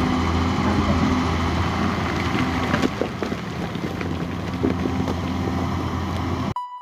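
Hydraulic excavator's diesel engine running steadily under digging load, with a few short knocks and scrapes of the bucket working into soil and rock. It cuts off abruptly near the end, giving way to a chime.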